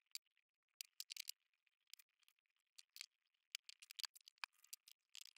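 Near silence with faint, scattered small clicks and ticks, from small metal and plastic robot-kit parts being handled and fitted by hand.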